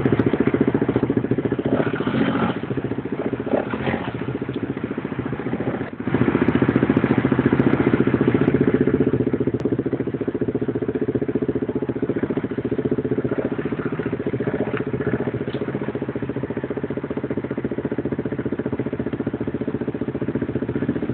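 ATV engine running steadily. About six seconds in it drops briefly, then picks up again louder.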